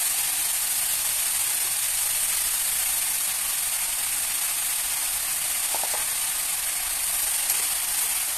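Ground beef, onion and green pepper sizzling steadily as they fry in pork lard in a pot on a gas burner, with a single spoon click near the end.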